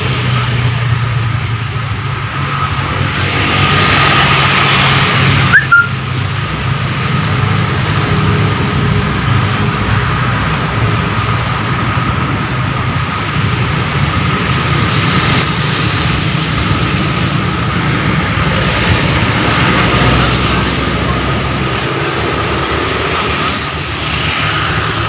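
Distant diesel-hauled express train approaching along the line, heard as a steady low drone with a hiss over it; a sharp click with a short rising chirp about five and a half seconds in.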